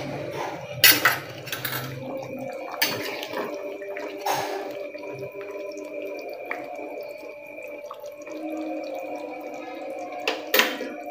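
Scattered clinks and knocks of kitchen utensils and dishes, with some water sounds, over a few steady held tones.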